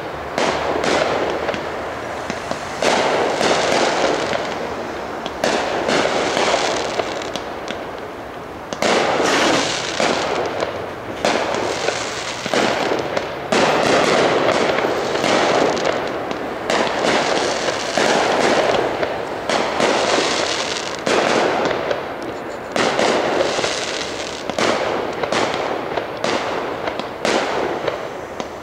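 Aerial firework shells launching and bursting one after another, a sharp bang roughly once a second, each followed by a long echoing tail.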